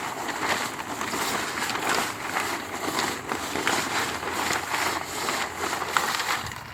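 Thick 6 mil plastic sheet crinkling and rustling while wet concrete mix slops and rolls around inside it as the sheet is worked by its corners; a dense, continuous crackle of small rustles.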